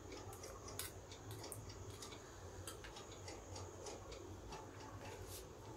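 Metal spoon clinking and scraping against a stainless steel bowl while dal is spooned out onto rice: faint, irregular small clicks, a dozen or so, the sharpest about a second in.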